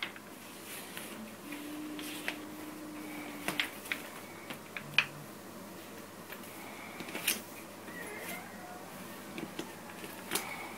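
Irregular light clicks and knocks of indoor household activity in a small room, with a brief faint steady hum about one and a half seconds in.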